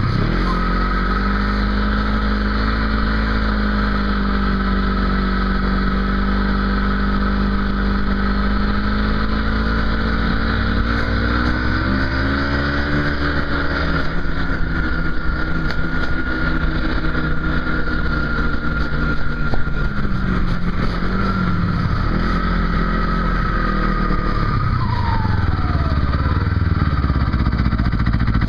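An engine running steadily, its pitch drifting up and down with the throttle, with a steady high whine over it.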